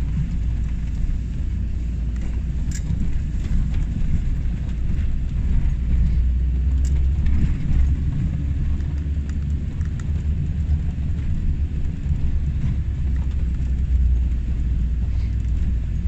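Steady low rumble of a car driving on the road, with a few faint ticks.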